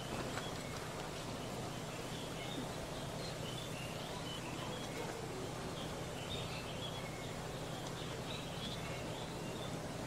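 Golden Tiger GT124 purple smoke grenade burning with a steady hiss as it jets out smoke, with birds chirping now and then.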